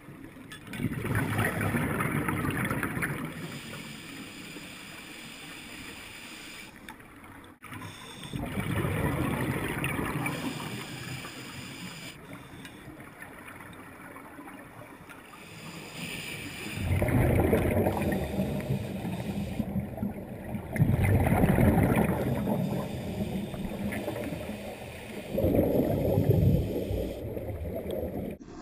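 Scuba divers exhaling through their regulators underwater: several bursts of rumbling, bubbling noise a few seconds long, with quieter stretches between them, as picked up by an underwater camera.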